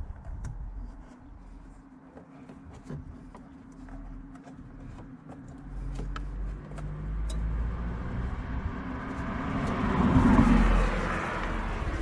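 A passing car approaches, growing louder to a peak about ten seconds in and then easing off. Scattered small clicks and knocks from handling headlight bulb parts come through the first half.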